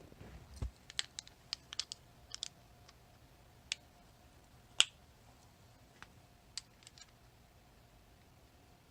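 Sharp little clicks and taps of metal parts and tools while a Chicago Ace tubular lock is being taken apart: a quick cluster of clicks in the first couple of seconds, a louder single click about halfway through, then a few faint ticks.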